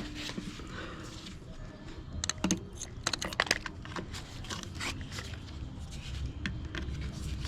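Hands working on a Toyota 2JZ-GTE engine bay, pulling off rubber vacuum lines: scattered clicks, scrapes and rustles, with a cluster of sharp clicks about two to three and a half seconds in. A low steady hum runs underneath.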